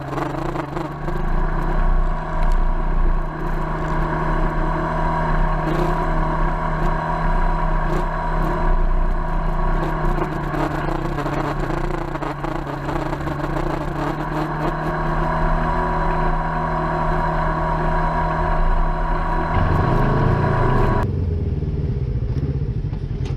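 Polaris RZR side-by-side engine running steadily as the machine drives a rough dirt trail, with knocks and rattles over the bumps. Near the end the engine note shifts, and then the higher sounds drop away abruptly, leaving a duller engine sound.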